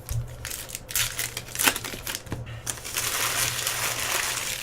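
Crinkling and crushing of plastic wrapping and cardboard as a trading-card hobby box is handled and opened. A few sharp clicks come in the first half, then steady crinkling from about three seconds in.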